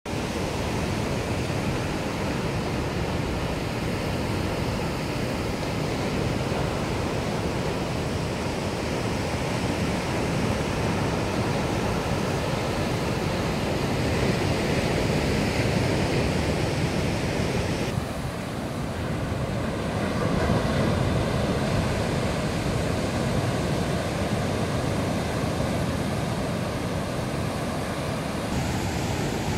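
Ocean surf breaking and washing over a rocky shore, a continuous rushing roar of waves and foam. About eighteen seconds in, the sound changes abruptly and turns duller.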